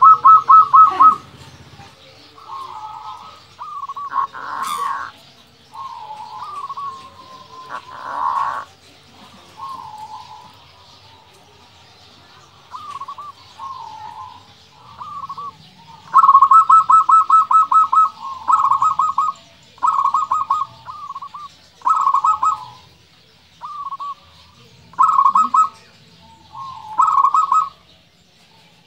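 Zebra dove (perkutut) cooing in repeated phrases of rapid staccato notes. The loudest, longest rolls come at the start and again from about 16 seconds on, with quieter, shorter coos between.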